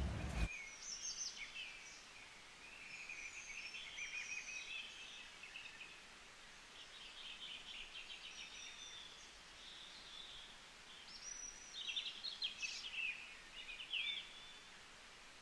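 Small birds chirping and trilling: scattered high calls, short rapid trills and quick sliding notes that come and go, busiest near the end. A louder low rumble cuts off about half a second in.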